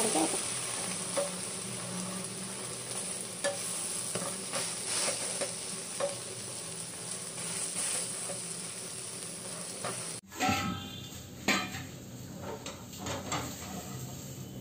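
Omelette sizzling in a hot iron frying pan, with light taps of a wooden spatula pressing it. About ten seconds in, the sound cuts abruptly to louder, uneven scraping and knocking of the spatula against the pan.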